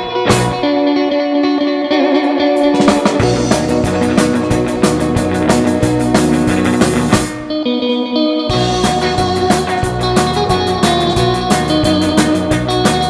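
Rock band playing: electric guitar with effects over bass and drums, with busy cymbal and drum strokes. The bass and drums drop out briefly a little past halfway, then the full band comes back in.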